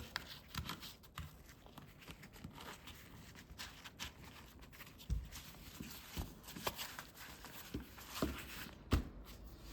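Small objects being handled: scattered light clicks, taps and rustles at irregular times, with a couple of sharper knocks about five and nine seconds in.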